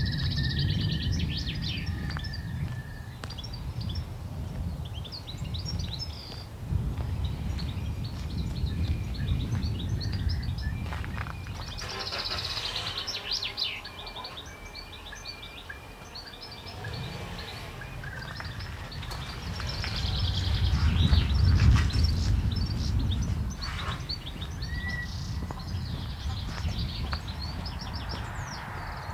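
Songbirds singing and chirping, with a high held trill in the first few seconds, while gusts of wind buffet the microphone, swelling loudest about three-quarters of the way through.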